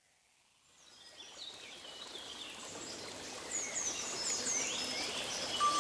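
Forest ambience fading in from silence: birds chirping in short, repeated falling calls over a steady rushing hiss. A held musical tone enters just before the end.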